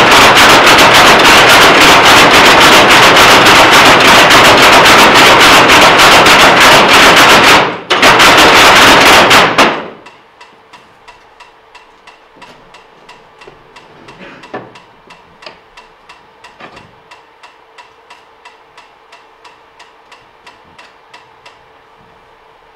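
Wooden noise-maker sculpture clattering loudly in a dense, rapid run of strikes, with a brief break and then a sudden stop about ten seconds in. After that only faint, regular ticking remains, about two or three ticks a second, dying out near the end.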